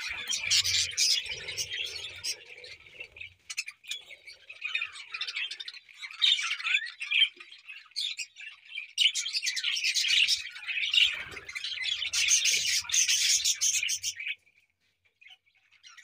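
A flock of budgerigars chattering, with dense overlapping squawks and chirps that thin out for a few seconds midway and then pick up again. The chatter stops abruptly near the end.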